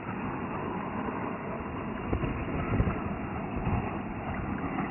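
Bayliner Ciera Sunbridge 2155 cruiser running at speed out on the water, its engine and wash a steady rush heard at a distance. Gusts of wind thump on the microphone, the loudest about two to three seconds in.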